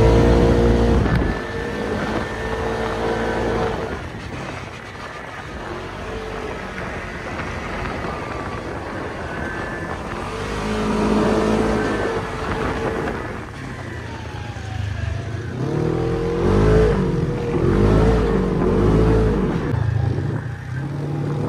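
Polaris RZR side-by-side buggy's engine revving up and down as it drives over sand dunes, in several rising and falling surges.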